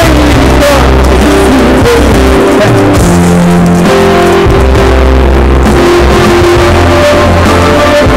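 Live band playing a pop song: electric guitar over keyboard and a steady bass line.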